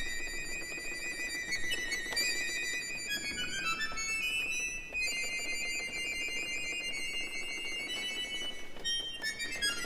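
Instrumental music: a high melody moving in quick steps over a soft accompaniment.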